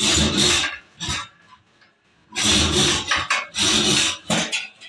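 Rubber hawai chappal sole scraped and rubbed against the threaded metal spindle of a manual slipper-making machine, in several rough rasping strokes of about half a second each with short pauses between.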